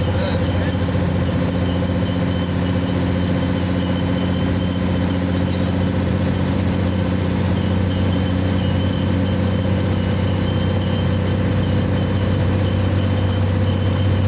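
A vehicle's engine running steadily at cruising speed, heard from on board as a constant low drone with road noise.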